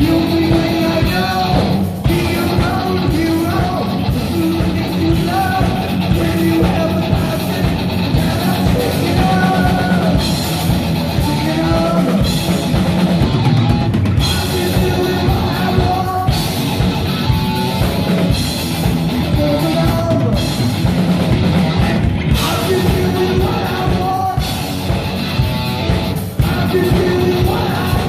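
Heavy metal band playing live and loud: distorted electric guitars and a drum kit keeping a steady beat.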